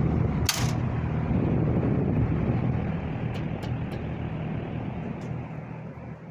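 1970s Windsor box fan running with a steady rush of air and a low hum. There is a sharp click about half a second in, then a few light ticks, and the sound gradually gets quieter over the last few seconds.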